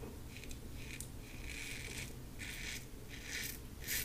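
Stainless steel LASSCo BBS-1 safety razor with a Gillette Silver Blue blade rasping through stubble and lather, in a series of short, faint strokes.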